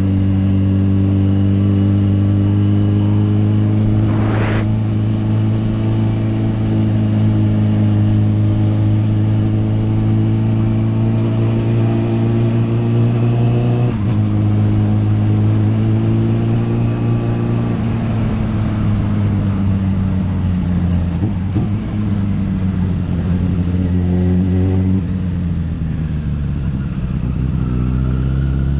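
Motorcycle engine running steadily under way, recorded from the bike. The revs break off and pick up again about halfway through, then fall away over the last several seconds as it slows.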